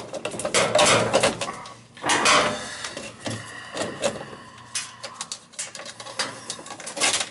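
Corrugated plastic washing-machine drain hose rustling, scraping and knocking against the washer outlet box as it is worked back into the drain. The noise comes as an irregular run of clatter and scrapes.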